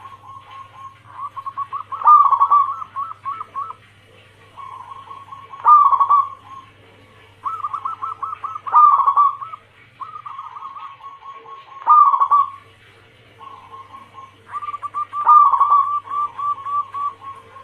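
Zebra doves cooing: phrases of rapid staccato coos, one after another every two to three seconds, over a faint steady low hum.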